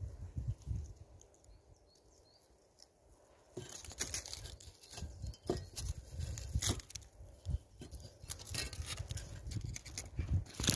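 A few dull handling knocks, then from about three and a half seconds in, dry leaf litter and twigs crackle and rustle irregularly as a rusted metal rake head is tugged and dragged out from under a fallen log. The loudest rustle comes near the end.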